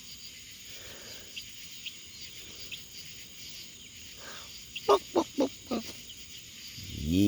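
Birds from a free-ranging poultry flock calling over a steady chorus of night insects. About five seconds in there are four quick, loud calls, each falling in pitch. Near the end a longer, louder call begins.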